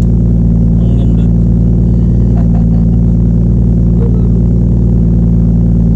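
Nissan Cefiro A31 drift car's engine idling steadily, heard from inside the cabin, with a few faint clicks as the racing harness is buckled.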